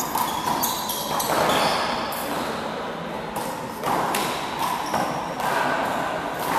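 Small rubber handball slapped by hand and hitting the wall during a rally, with thuds echoing around a large indoor court.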